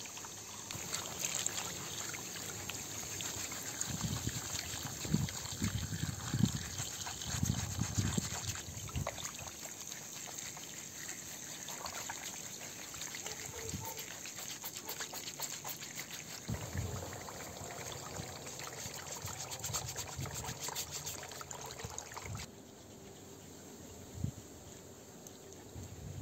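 Water running from a hose and splashing in a plastic basin as a lamb head is scrubbed and rinsed by hand, with heavier sloshes in the first half. The running water cuts off suddenly near the end.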